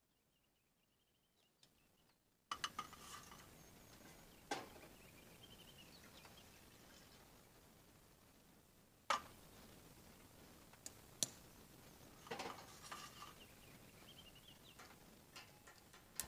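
Scattered knocks and clinks of dishes and camp cookware being handled on a folding table, with a few sharper clacks. It begins after a couple of seconds of near silence.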